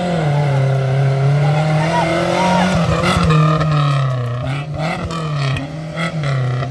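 Maruti Gypsy engine revving hard under load on a mud off-road course, its pitch repeatedly rising and falling.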